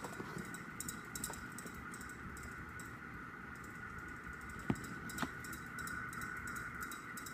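Faint handling of an album photo book: soft rustles of paper pages and light clicks and taps, with two sharper taps about five seconds in. A steady faint high-pitched whine runs underneath.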